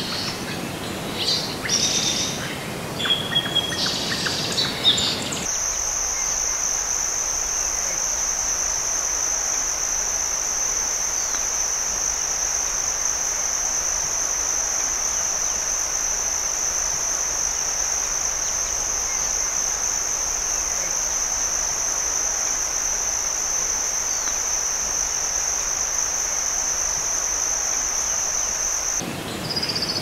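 Birds chirping and calling for the first five seconds or so, then a steady, high-pitched insect drone that cuts in suddenly, holds unchanged for over twenty seconds and cuts out just as suddenly, with bird calls returning near the end.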